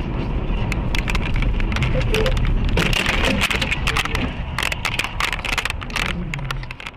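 Road and engine rumble of a moving car, heard from inside the cabin through a dashcam microphone, with many irregular sharp clicks and crackles over it.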